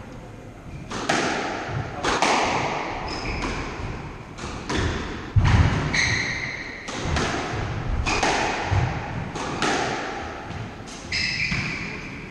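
Squash rally: the ball is struck by rackets and smacks off the court walls in sharp hits, roughly one a second, with short high squeaks of shoes on the wooden court floor.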